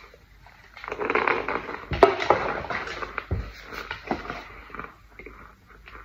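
A white pressed powder brick being pushed and rolled into a tray of loose scented powder: dense soft crunching and swishing, with a sharp crack about two seconds in, then lighter scattered crackles.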